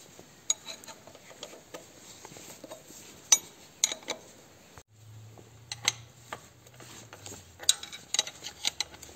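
Scattered sharp clicks and light metallic clinks of hand tools and small metal parts being handled while a tractor fuel line is replaced, with a brief break about five seconds in.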